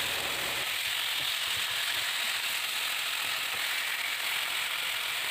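Milkfish pieces sizzling in oil and spice paste in a nonstick wok, a steady hiss, with a wooden spatula scraping and knocking lightly against the pan as they are stirred.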